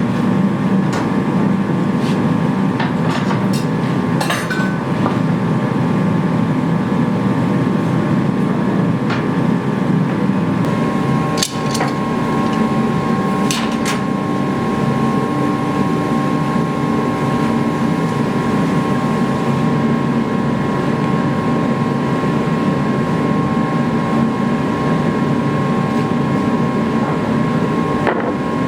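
A blacksmith's forge running with a steady roar and a constant whine, heating the blade for hardening. A few light metallic clinks and knocks are heard over it.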